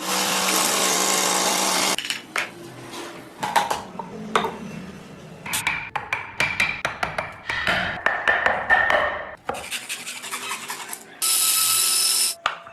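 Woodworking tools working a block of wood during carving: a power tool runs for about two seconds, then come a string of short scraping, cutting and tapping sounds, and a power tool runs again near the end.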